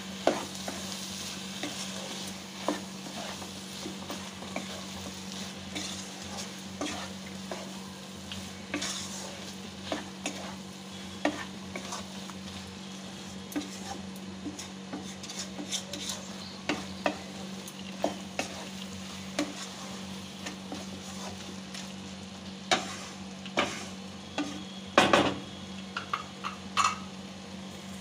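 A spatula stirring taro stolons and shrimp in a wok over a soft sizzle, with frequent irregular scrapes and clicks against the pan as the mustard paste is mixed through. A steady low hum runs underneath, and a cluster of louder knocks comes near the end.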